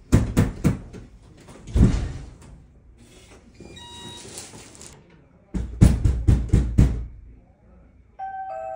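Knocking on a door: a quick run of about four raps, then a single heavier thud about two seconds in. Short electronic beeps with a hissing whirr follow, as of a digital door lock being operated. Then comes a second run of about six loud knocks.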